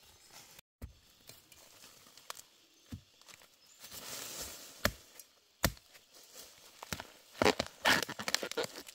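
Machete chopping at the base of a bamboo shoot in forest soil: a few sharp single chops a second or two apart, then a quick run of crunching and tearing near the end as the shoot and its husk are cut.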